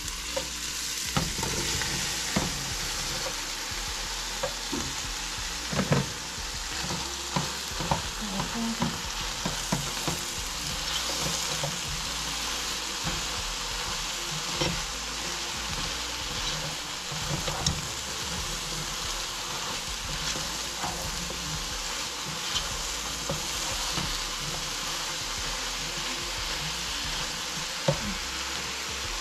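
Eggplant and ground pork sizzling in a hot pan as they are stir-fried, a steady frying hiss broken by frequent irregular clicks and knocks of the utensil stirring against the pan.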